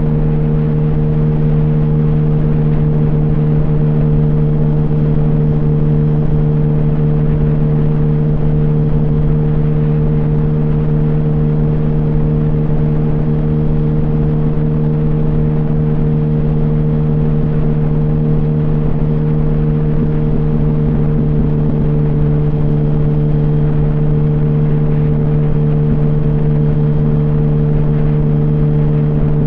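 Yamaha R1 inline-four engine running steadily through an open exhaust with the baffles removed, holding one even engine speed.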